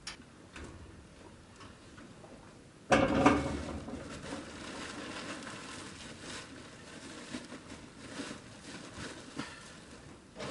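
Rustling and shuffling in straw bedding as a newborn calf too weak to stand struggles at its mother's udder, with a sudden loud thump about three seconds in, after which the rustling and small knocks are louder.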